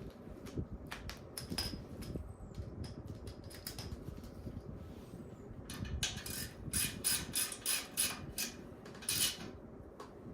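Hand tools on the 14 mm bottom bolt of a rear shock absorber: scattered metal clicks and clinks, then a quicker run of sharp metallic clicks about two a second in the second half as the bolt is tightened.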